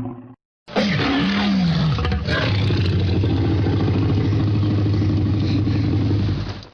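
Tyrannosaurus rex roar sound effect: a loud roar that starts with a sliding pitch, then settles into a long, steady, low rumbling growl before it cuts off.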